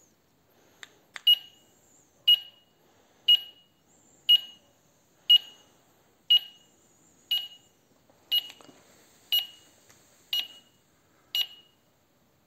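Wireless home alarm system beeping, eleven short high beeps evenly spaced about once a second, just after two sharp clicks.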